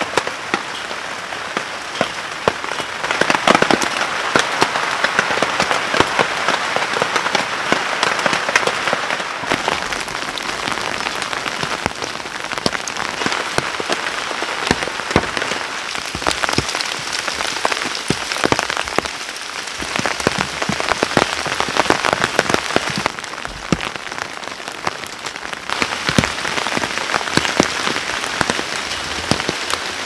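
Heavy rain pouring down, a dense patter with many sharp individual drop hits close by; its sound shifts a few times as the scene changes.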